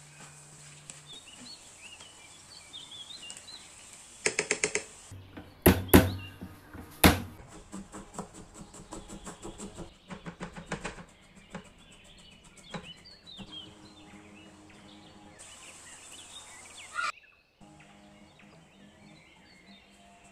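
Knocks and clicks of food preparation, loudest in a cluster about four to seven seconds in, with birds chirping in the background.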